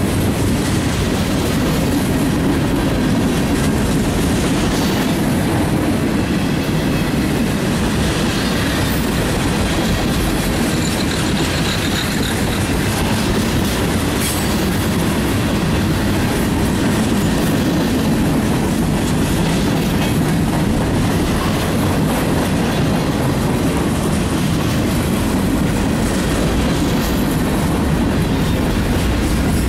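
Freight cars of a mixed freight train rolling past at close range: a steady, loud rumble of steel wheels on rail with clicking over the rail joints, and a faint wheel squeal about midway.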